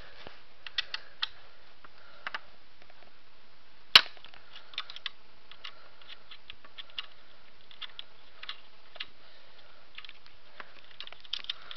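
Small metal clicks and ticks of an Allen wrench turning out screws on an airsoft rifle's lower rail, scattered irregularly, with one sharp, much louder click about four seconds in.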